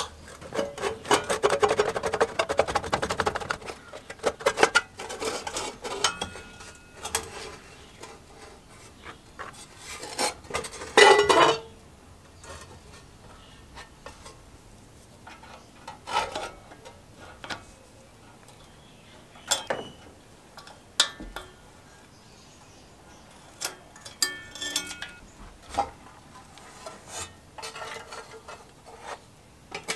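Sheet-metal blower housing and recoil starter of a Briggs & Stratton 5 hp engine being handled and lifted off by hand: metal rattling and clinking, busiest in the first few seconds and again around ten seconds in, then scattered clicks and clanks.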